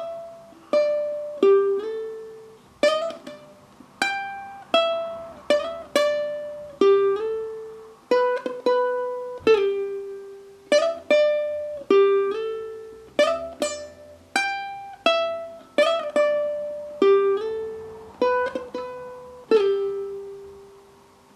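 Ukulele playing a single-note melody line up to speed: plucked notes on the A and E strings that ring and fade, joined by slides and hammer-ons and pull-offs between frets.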